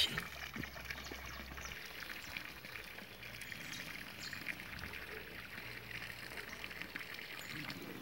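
Water pouring steadily from an inlet pipe into a small fish pond, a faint continuous trickle.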